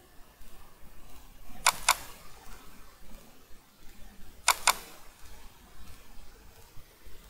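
Computer mouse double-clicked twice, about three seconds apart, each a quick pair of sharp clicks.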